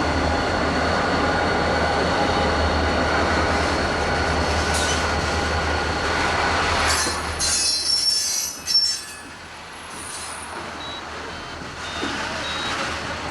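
Train cars rolling by with a steady rumble and squealing wheels. About seven seconds in, the rumble drops away into high-pitched screeches and a sharp clank, and then it quietens.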